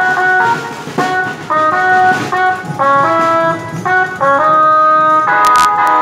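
Procession band music: a loud, brass-toned melody of held notes that change every half-second to a second, over a rough low rhythm section.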